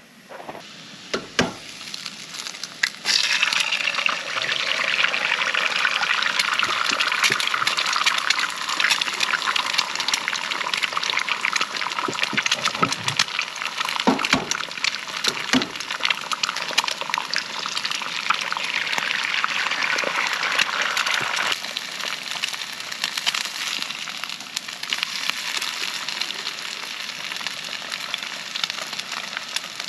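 Egg and diced potatoes frying in a nonstick skillet on a propane camp stove: a dense crackling sizzle that starts suddenly about three seconds in and eases somewhat about two-thirds of the way through. A few light knocks of a utensil against the pan come midway.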